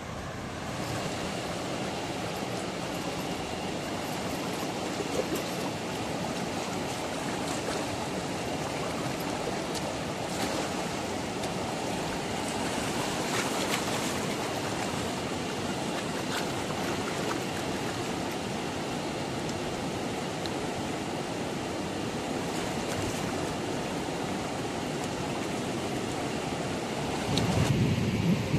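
River water flowing steadily, an even rushing noise, with a few faint clicks midway. A louder low rumble comes in near the end.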